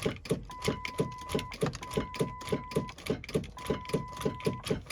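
Rapid, even clicking about four times a second, with a steady high beep sounding on and off in stretches of about a second.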